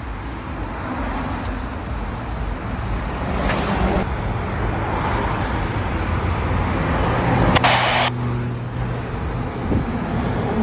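Road and traffic noise heard from inside a moving car: a steady rumble of tyres and engine. Two short bursts of hiss come about three and a half and seven and a half seconds in.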